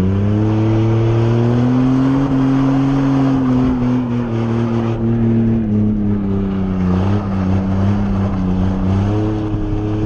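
Car engine heard from inside the moving car, revs climbing at the start and then holding fairly steady under way, easing off about seven seconds in and picking up again near the end.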